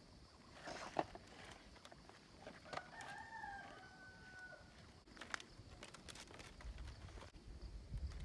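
A rooster crowing once, faint, for about a second and a half starting about three seconds in. Around it are a few light clicks and rustles of thin bamboo strips being worked through a basket weave by hand, the sharpest about a second in.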